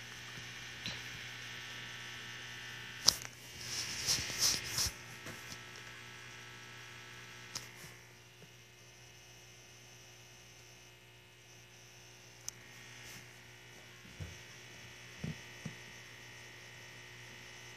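A steady low electrical hum, with a sharp click about three seconds in, a second or so of rustling after it, and a few faint taps later: handling noise as small plastic toy figures are moved over a fleece blanket.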